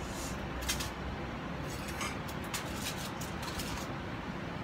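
Steady background hum with a few light, scattered crinkles and taps as hands handle a raw chicken in a foil-lined roasting pan.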